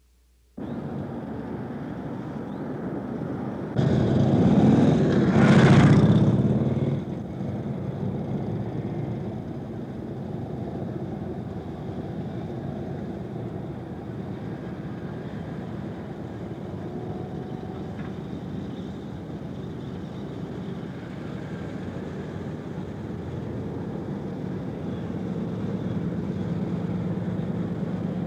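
Street traffic: a vehicle passes close, loudest about six seconds in, then a steady rumble of motor traffic.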